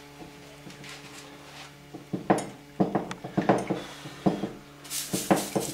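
Metal tools and fittings clinking and knocking on a wooden workbench as they are handled, several sharp knocks from about two seconds in. A rushing hiss starts near the end.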